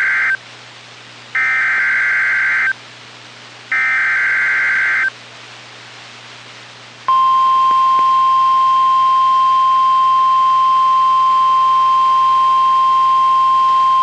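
NOAA Weather Radio emergency alert opening: the EAS SAME digital header, a harsh warbling data burst sent three times with about a second between, then the steady 1050 Hz weather radio warning alarm tone starting about seven seconds in.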